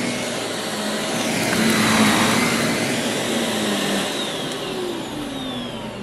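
Shark upright vacuum cleaner running on carpet as it is pushed over scattered Doritos and sucks them up. It gets loudest about two seconds in, then eases off slowly toward the end.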